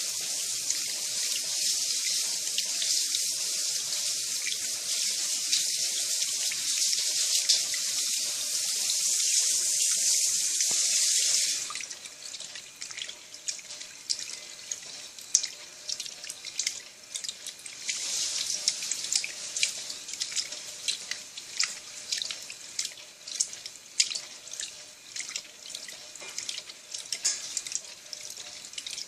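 Water running into a Turbo Economia 10 kg washing machine's tub in a loud, steady rush. About twelve seconds in the rush suddenly stops, leaving quieter splashing and dripping.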